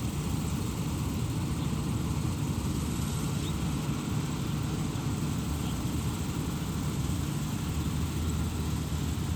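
Rice combine harvester running steadily: an even engine drone with a constant hiss over it.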